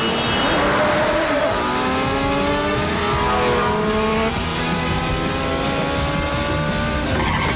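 Sport motorcycle engines revving hard, their pitch climbing steadily as they accelerate, several at once, with film score music underneath.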